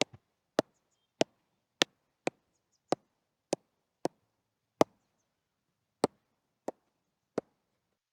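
Cricket bat striking a ball: a string of about a dozen sharp knocks, mostly a little over half a second apart, with a longer pause about two-thirds of the way through.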